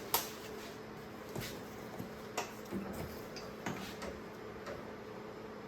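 Scattered sharp clicks and knocks of hard objects being handled, about five in all, over a steady low hum.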